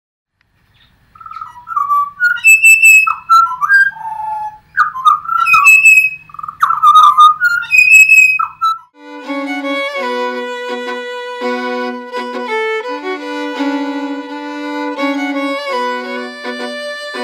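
Pied butcherbirds singing together: loud, fluting whistled phrases that slide up and down, repeated several times over about eight seconds. About nine seconds in, violin music takes over.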